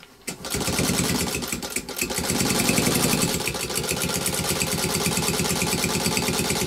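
Singer 201K sewing machine stitching through thick leather, starting up about a third of a second in and running at a steady, rapid stitching rhythm. It is a test run under heavy load after the upper tension spring was replaced.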